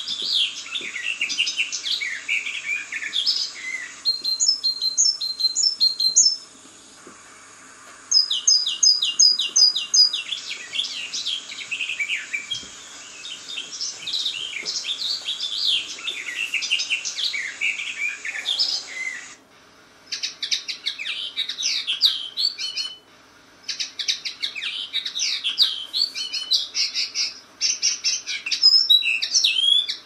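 Several forest songbirds singing and chirping together in quick, overlapping phrases. Twice a bird gives a series of high, evenly spaced notes. The recording changes abruptly a few times, with short quieter gaps between parts.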